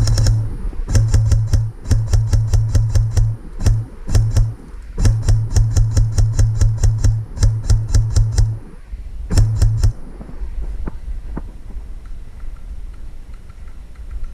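Airsoft electric rifle firing in rapid bursts, about eleven shots a second, with a low motor hum under each burst; several bursts come in quick succession over nine seconds, then only a few scattered single clicks.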